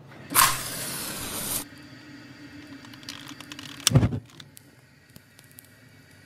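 A match struck and flaring with a hiss for about a second, then a gas ring burner lit from it, catching with a sudden low whoomp about four seconds in.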